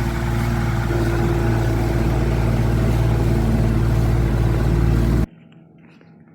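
Motorboat engine running steadily at a constant speed. It cuts off abruptly about five seconds in, leaving only faint background sound.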